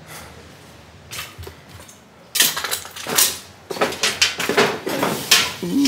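Footsteps crunching and scraping over debris-strewn floor: a quiet start, then from about two seconds in a quick, irregular run of sharp crunches and knocks, about three a second.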